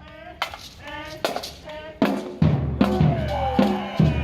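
A voice for about two seconds, then a street percussion band comes in with bass drum and snare drums beating steadily, and a long tone slides down in pitch above the drums.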